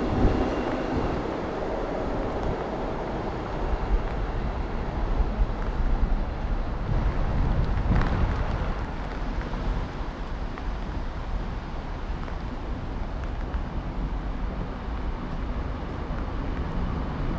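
Wind buffeting the microphone over the rumble of an electric train running away down the line, slowly fading.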